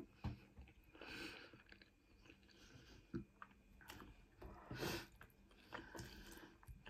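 Faint close-up chewing and wet mouth sounds of a person eating cheesy garlic bread and tagliatelle bolognese, with a few short sharp clicks scattered through.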